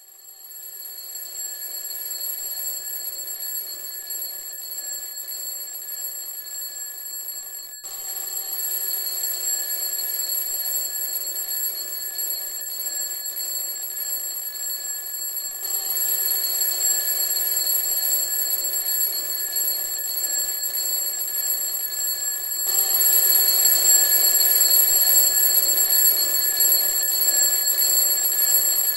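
Alarm clock ringing with a steady, high-pitched alarm that grows louder in steps, about every seven or eight seconds.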